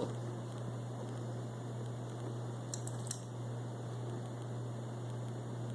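Steady low electrical hum and hiss of a small room, with two faint clicks about three seconds in.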